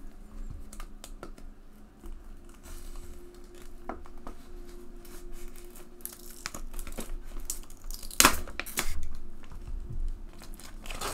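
Clear plastic shrink-wrap being peeled and torn by hand off a sealed DVD box set, crinkling and crackling, with two louder crackles about eight seconds in.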